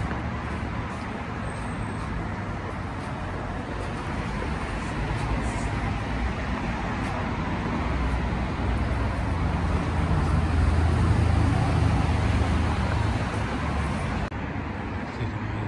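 Street traffic noise, with a motor vehicle approaching and passing close: a deep rumble swells about halfway through, is loudest a few seconds later, and fades again near the end.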